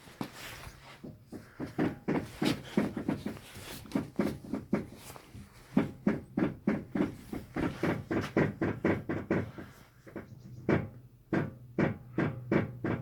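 Rapid, repeated knocking and clicking from a BMW F11 5 Series Touring's steering, several knocks a second in runs broken by two short pauses, over a low steady hum. This is the strange steering noise under investigation.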